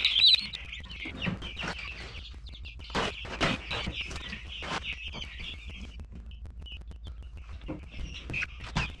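Black Australorp chicks peeping in a busy chorus, the alarmed cries of chicks being caught by hand, with scattered knocks from the handling. The peeping thins out after about six seconds.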